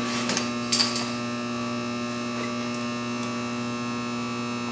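Steady electrical hum made of several tones, with two short scratchy noises within the first second.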